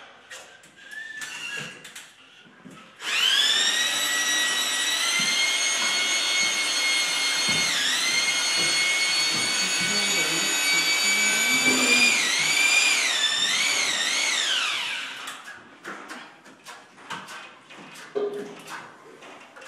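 An electric power-tool motor, such as a drill, runs for about twelve seconds. Its pitch climbs slightly as it starts, dips briefly once, wavers up and down several times as the trigger is worked, then falls away as it winds down. Faint knocks and scrapes come before and after it.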